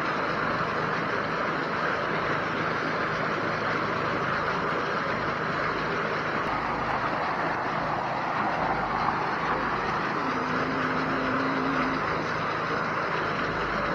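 Steady rush and splash of a jet of water from a water truck's fire hose plunging into a swimming pool as it fills, with a low, even engine drone underneath.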